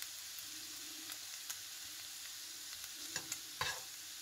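Soft clicks and scrapes of a metal fork pushing cooked chicken pieces into a halved red pepper, a few of them around three seconds in, over a faint steady hiss.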